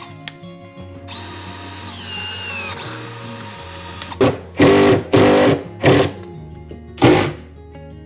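A power tool such as a drill is run in several short bursts, starting about halfway through, over background music.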